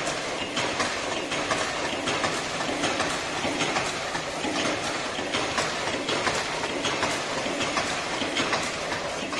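Fully automatic servo-driven face mask machine running in production: a steady, dense mechanical clatter of rapid clicks.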